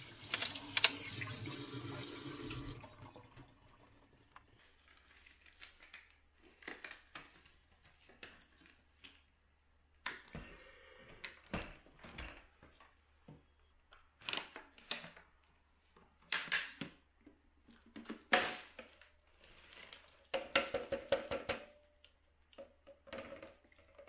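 Tap water running into a stainless steel sink for about the first three seconds. Then a long stretch of scattered sharp plastic clicks, snaps and knocks as a Dyson canister vacuum's parts are handled and its clear dust bin is unlatched.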